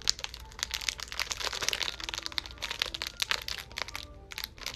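Crinkly blind-bag wrapper of a Disney Doorables figure crackling and rustling as it is handled and opened by hand, with a short lull near the end.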